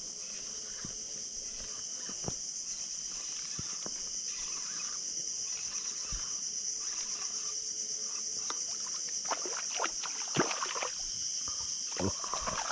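Steady high insect drone, with scattered knocks and clicks from rod, reel and boat handling as a hooked grouper is reeled in. Denser splashing and knocks near the end as the fish comes to the surface beside the boat.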